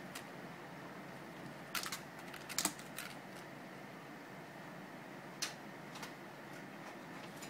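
Light, irregular clicks and taps as a cat paws and bites at a toy mouse on a string on a carpeted cat tree, the loudest cluster a couple of seconds in, over a steady hiss.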